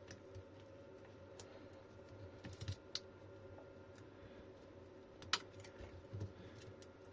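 Faint, scattered small clicks and taps of hands working on a lithium battery pack, with a sharper click a little past five seconds, over a faint steady hum.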